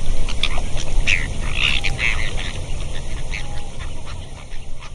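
Waterfowl calling from the pond: many short, irregular calls over a steady low rumble.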